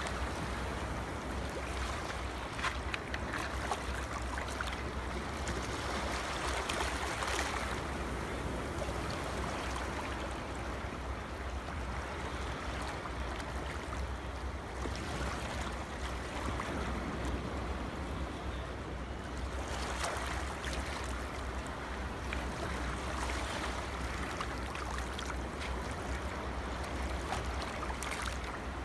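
Sea waves washing in, a steady rush that swells and eases every few seconds.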